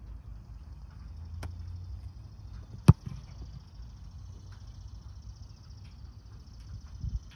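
American football punt: a single loud, sharp thump of the foot striking the ball, preceded about a second and a half earlier by a fainter click as the snap reaches the punter.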